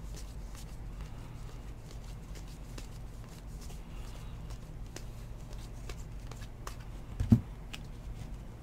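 Glossy trading cards being flipped and slid against each other in the hands, with faint light ticks, over a steady low hum. A single dull thump comes about seven seconds in.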